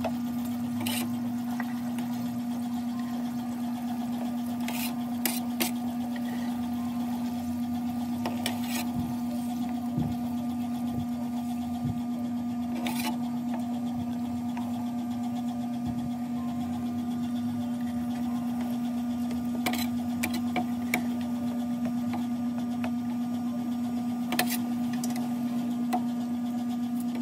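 A steady electric motor hum runs throughout, with a few short, light knocks of a wooden spatula against a metal wok as a stew is stirred.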